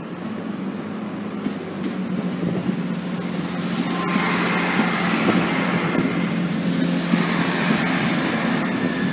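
Diesel multiple-unit passenger train approaching and running past at a level crossing: a steady engine drone under wheel-and-rail noise that grows louder, with a thin high tone from the passing train near the end.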